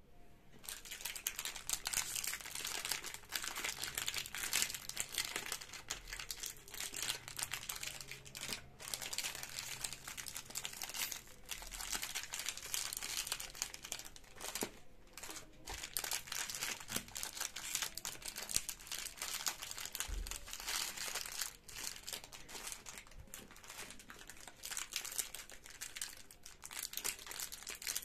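Plastic biscuit wrappers crinkling as hands pick up, squeeze and turn the packets over: a near-continuous crackle with a few short pauses.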